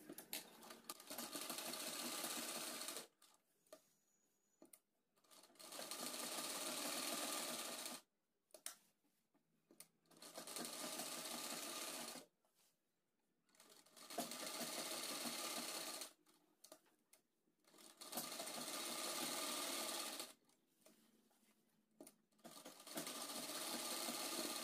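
Domestic sewing machine stitching in short runs, about six runs of two to three seconds each with pauses between, sewing along the open double-layered edge of the fabric to lock it.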